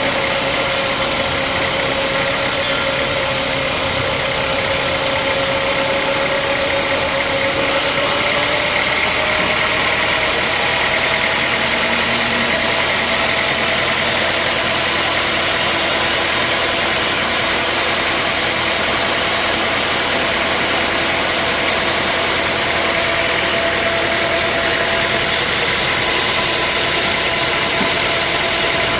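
Sawmill machinery running steadily under engine power, with a constant mechanical drone. Its main tone rises a little in pitch about eight seconds in and then holds.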